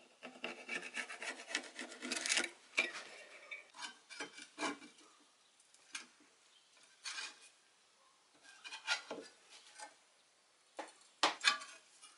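A pencil scratching a line along a steel ruler onto a steel blade, as dense rubbing for about two seconds. After that come scattered short scrapes and clinks as the steel blade, clamped in a bench vise, is gripped and bent with an adjustable wrench.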